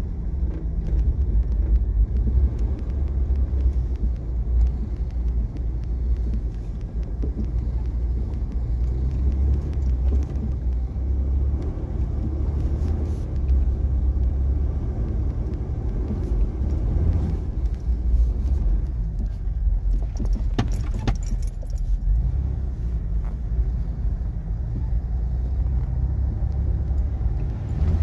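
Jeep driving over a snowy dirt trail, heard from inside the cab: a steady low rumble of engine and tyres. About three-quarters of the way through there is a brief metallic jingling rattle.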